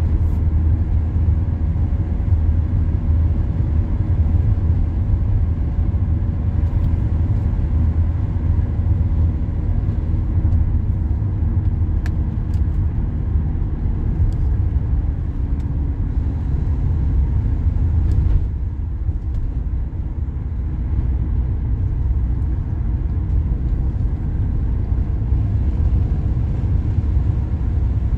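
Car running on the road, heard from inside the cabin: a steady low engine and road rumble that eases off slightly about eighteen seconds in.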